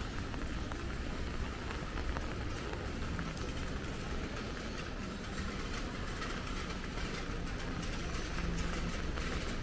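Steady hiss of falling rain on a city street, with a low rumble of traffic underneath.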